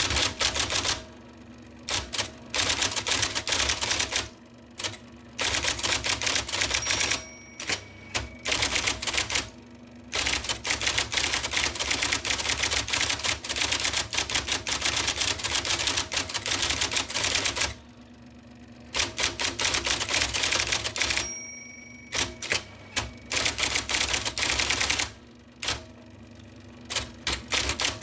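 IBM Selectric II electric typewriter typing in fast runs of rapid clacks as the type ball strikes the paper, broken by short pauses, with the motor's steady hum underneath.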